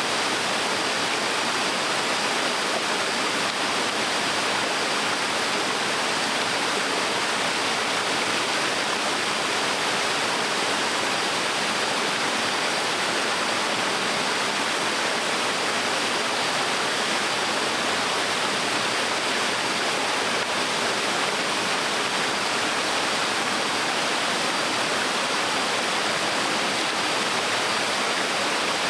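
Small waterfall on a stream: water falling and rushing over rocks in a steady, even hiss and splash.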